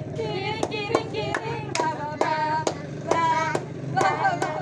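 A song being sung with steady hand clapping on the beat, about two to three claps a second.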